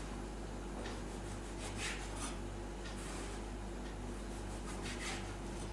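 A table knife cutting the crusts off slices of bread on a wooden cutting board: a few faint, short scraping strokes through the crust and onto the board, over a steady low hum.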